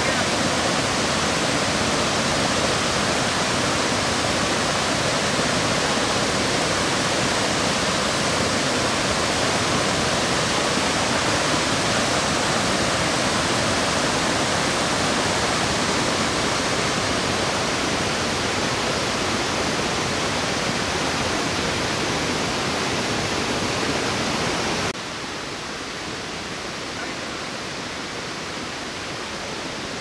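Rushing white water of a rocky river waterfall and rapids running high after a typhoon, a steady, dense rush. About 25 s in it drops suddenly to a quieter, steady level.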